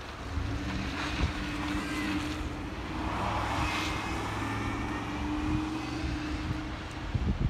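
A semi truck's engine running with a steady drone, the sound swelling about three to four seconds in.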